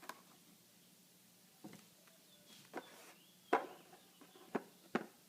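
Handling noise from a switchblade knife being turned over in the hand: a few light, separate clicks and taps, about six in all, the loudest a little past the middle.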